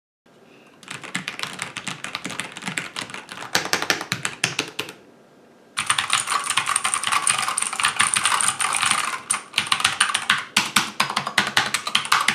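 Fast typing on a mechanical keyboard, rapid clacking keystrokes in two stretches with a brief pause between them about five seconds in; the second stretch sounds brighter and sharper.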